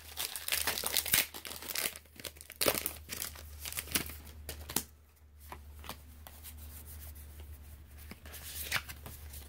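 Foil wrapper of a Pokémon trading card booster pack being torn open and crinkled. A flurry of tearing and crackling fills the first two seconds, thins out by about five seconds in, and gives way to softer rustling with one more crinkle near the end.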